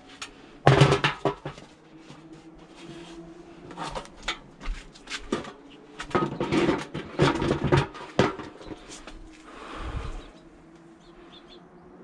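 Irregular bursts of knocking and clattering, as from timber and tools being handled during carpentry work, loudest about a second in and again between six and eight seconds in.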